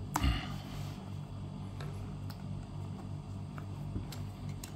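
A few faint clicks and small handling noises from a coin box and its packaging being opened and handled, over a steady low hum.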